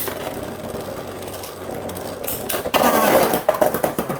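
Two Beyblade spinning tops, one of them 3D-printed, whirring and scraping against each other and the plastic stadium just after launch. About two and a half seconds in they break into a rapid run of sharp clashing clicks as they collide.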